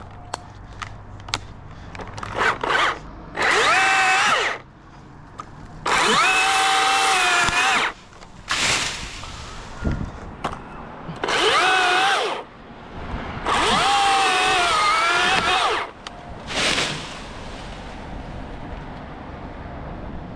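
Cordless chainsaw run in six bursts, four of one to two seconds and two short blips, its motor whine sagging in pitch within the longer bursts as it bogs into the wood.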